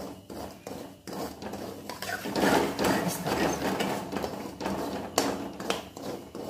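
Metal ladle scraping and knocking against a metal kadhai while stirring semolina roasting in ghee: a quick, uneven run of scrapes that gets louder about two seconds in.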